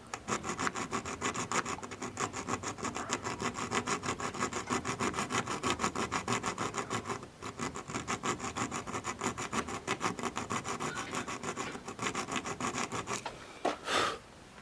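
Hand saw cutting the storage door's metal G channel in quick, even back-and-forth strokes, about four a second, pausing briefly midway and stopping near the end, followed by one brief louder scrape.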